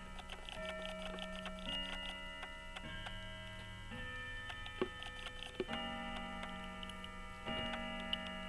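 Faint rapid ticking like a clock or watch running, with a few small sharp clicks of handling. Faint sustained tones sit underneath and shift every second or two.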